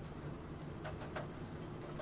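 A few computer keyboard keystrokes, spaced out, about a second in, over a steady hiss of rain falling.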